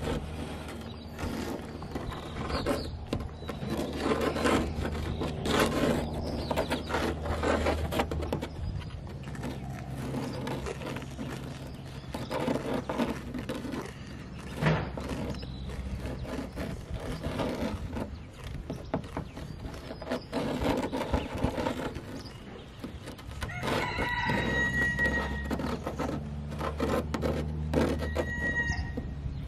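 Plastic hose nozzle of a toy street sweeper scraping and rustling through a pile of loose debris on a wooden tabletop, over a steady low hum. A rooster crows near the end, then gives a shorter call just before the end.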